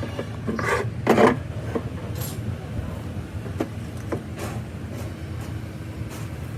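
A steady low mechanical hum with several sharp knocks and short rattles, the loudest about a second in.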